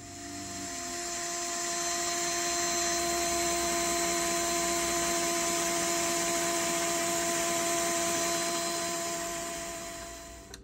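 Cordless drill running at a steady speed while its bit cuts through a metal plate: an even motor whine with a grinding hiss. It fades in over the first couple of seconds and fades out near the end.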